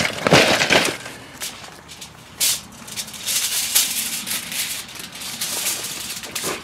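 Bottles and cans clattering in a bucket during the first second, then aluminium foil crinkling and rustling as it is folded by hand around a mushroom.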